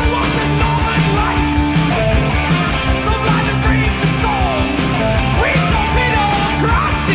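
Background rock music with a steady beat, guitar and singing.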